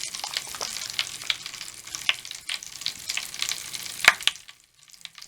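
Mr. Bubble Magic Bath Crackles popping and fizzing in wet foam: a dense crackle of small snaps over a faint fizz. There is one sharper snap about four seconds in, then it thins suddenly to a few scattered pops.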